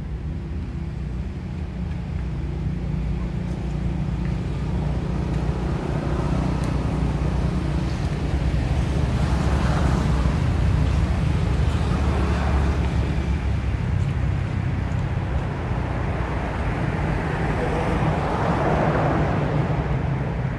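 Low, steady rumble of motor traffic on a nearby road, swelling as vehicles pass around the middle and again near the end.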